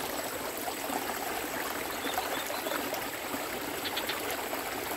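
Steady hiss of water trickling through a small ditch, with a faint, high, steady tone above it.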